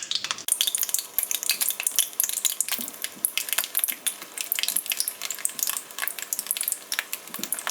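Whole ripe bananas, skins on, sizzling and crackling in hot oil, the dense crackle starting up about half a second in.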